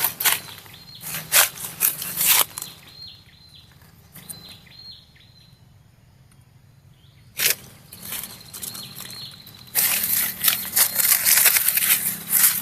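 Bursts of rustling and scraping in the first couple of seconds, one short burst partway through, then a longer stretch of dense rustling near the end, with a quiet spell in the middle. A faint, steady high tone runs underneath.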